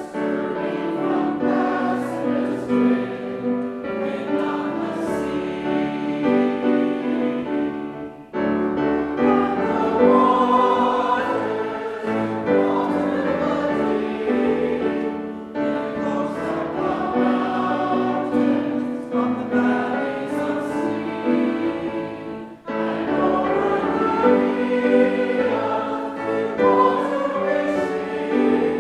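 A choir singing in sustained chords, phrase by phrase, with short breaths between phrases about 8 seconds and 22 seconds in.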